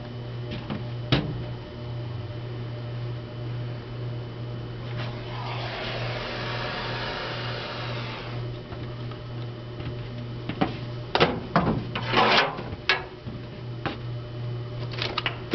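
Wood gasifier's electric blower humming steadily. From about five to eight seconds a hand-held propane torch hisses, and later a metal rod knocks and clanks several times inside the gasifier.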